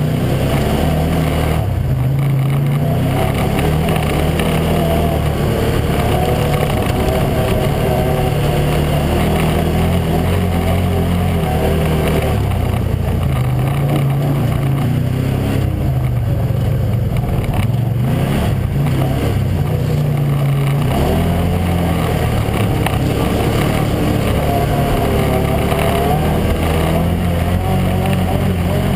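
Arctic Cat Wildcat 1000X side-by-side's V-twin engine running under load from onboard, its revs rising and falling as it accelerates and eases off along a gravel trail, with two brief dips in engine sound.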